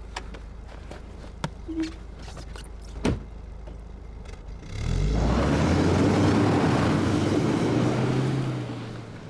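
A car door knocks shut, then a Volvo sedan's engine revs up and the car pulls away hard through snow, tyres churning, for about four seconds before fading off.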